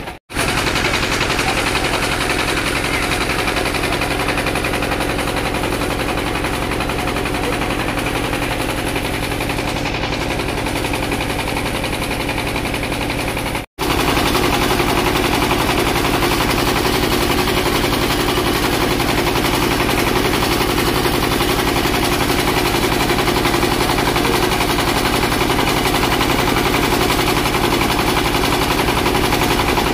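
Single-cylinder diesel engine of a country boat running, a loud, steady, rapid chugging of firing strokes, broken off for an instant twice.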